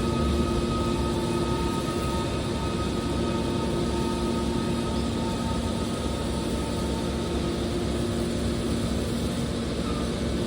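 Hydraulic scrap-metal baler running: a steady machine drone with a constant whine from its motor and pump, level throughout.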